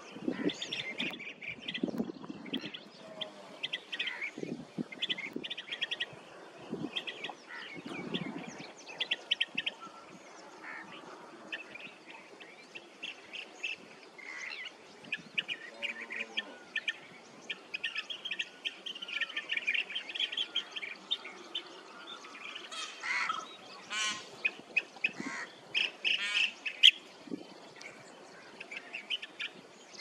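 Blue-tailed bee-eaters calling: short rolling, trilled calls repeated over and over, coming thicker and louder in the last third.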